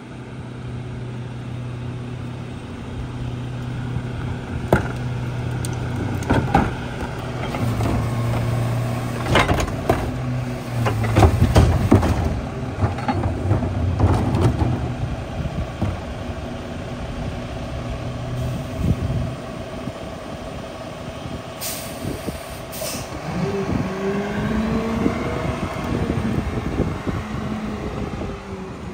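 Mack LEU garbage truck with a McNeilus rear loader body running steadily while a wheeled cart is emptied into the rear hopper, with a cluster of sharp clanks and bangs in the first half. About two-thirds through come two short air-brake hisses, then the engine note rises and falls as the truck moves off.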